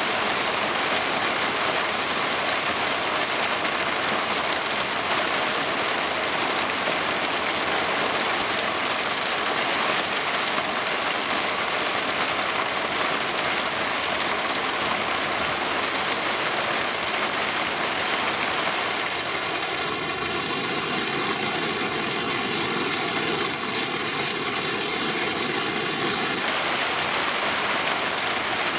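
Heavy thunderstorm rain falling steadily, an even hiss of rain on surfaces. For several seconds about two-thirds of the way through, a faint hum with a ribbed, wavering tone lies over the rain.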